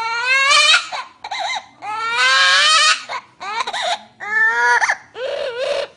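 A voice crying like a baby: a series of loud wailing cries with short breaks between them, the longer ones rising in pitch and the last one wavering.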